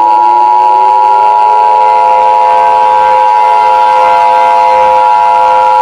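Emergency Alert System–style attention tone: a loud, steady chord of several held tones, like a horn, with a lower tone gliding upward during the first second or so.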